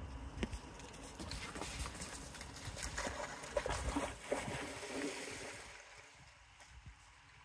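Water splashing and trickling, irregular, with small sharp splashes, as a dog swims; it quiets down near the end.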